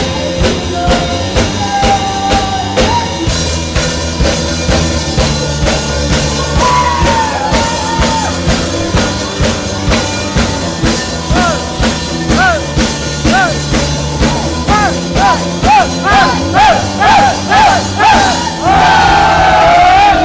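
Rock band playing live: a drum kit keeps a steady beat under a lead line of repeated quick up-and-down pitch bends that grow louder through the second half. A loud held, wavering note comes in near the end.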